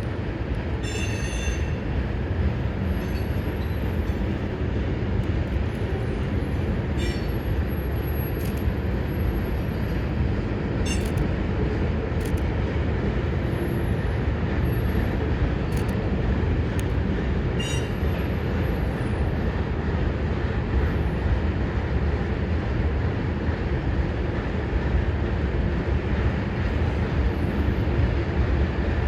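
CSX freight train rolling past with a steady low rumble of wheels on rail. Brief high-pitched wheel squeals and a few sharp clicks come and go during the first two-thirds.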